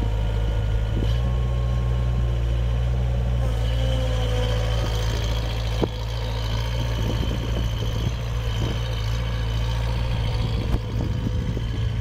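The Yanmar 4TNE84 four-cylinder diesel of a 1996 Daewoo 601 skid steer running steadily as the machine drives, with a sharp knock about six seconds in and another near eleven seconds.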